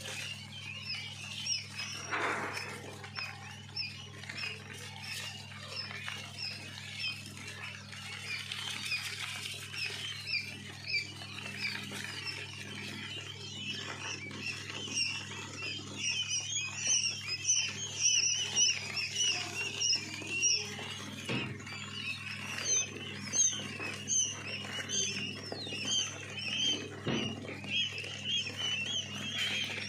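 A brood of quail chicks peeping: many short, high chirps overlapping, growing louder and denser about halfway through. A steady low hum runs underneath.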